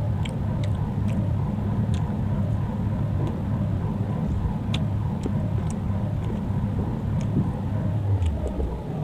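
A steady low rumble with scattered short sharp clicks: eating sounds, with mouth clicks and chewing of parotha, over the rumble.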